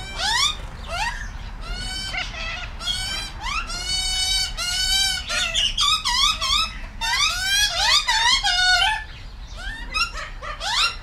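Australian magpies calling continuously: a fast run of rising, warbling calls, easing off briefly near the end.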